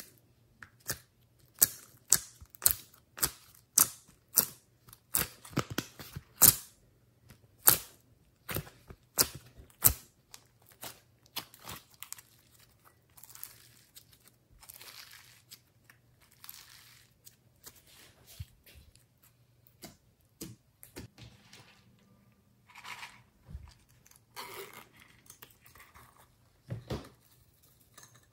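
Glossy slime being handled by hand: sticky pops and clicks, about two a second and sharp over the first ten seconds, then softer squelching and stretching sounds with scattered clicks.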